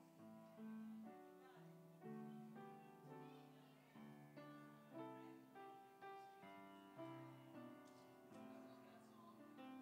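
Grand piano playing a slow melody over chords, each note struck and left to ring and fade, heard faintly.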